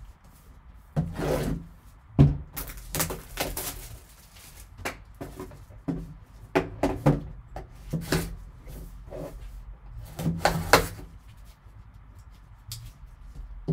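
Gloved hands handling a shrink-wrapped cardboard trading card box: irregular crinkles of plastic wrap and rubbing of cardboard, with scattered knocks as the box is turned over and set on the table, the loudest about two seconds in.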